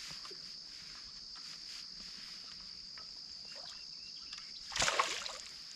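A steady high chorus of crickets or other insects, with one short splash of water about five seconds in.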